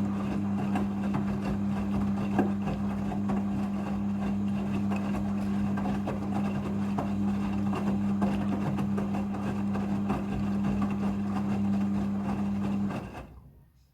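Midea front-loading washing machine running in its rinse cycle: a steady mechanical hum with a rattly, churning texture, which dies away about a second before the end.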